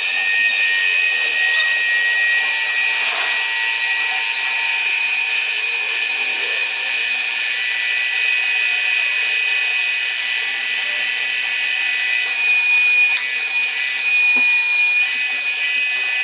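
CNC router spindle running with a steady high-pitched whine as it carves wood.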